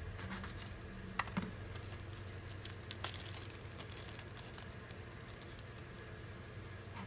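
Small clear zip-lock plastic bag crinkling faintly as it is handled and opened and a rubber connector strip is drawn out, with two light clicks about a second in.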